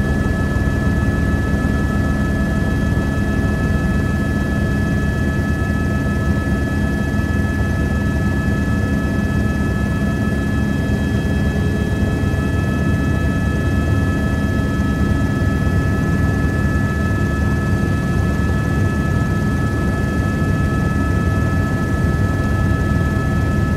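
Helicopter in flight, heard from inside the cabin: a loud, steady drone of engine and rotor noise with two steady high whining tones over it.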